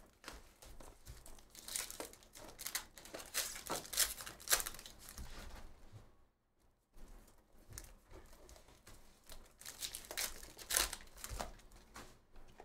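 Trading cards slid and flicked against one another by hand: a run of short, papery swishes and rustles, with a pause of about a second a little past halfway.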